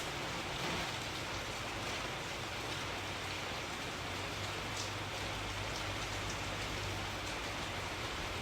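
Steady rain falling, an even hiss with faint individual drop ticks now and then and a low hum underneath.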